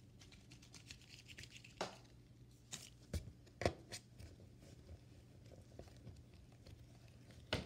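Hand rolling a ball of modelling clay on a tabletop: faint rubbing with a few short taps and knocks of the hand against the table, over a low steady hum.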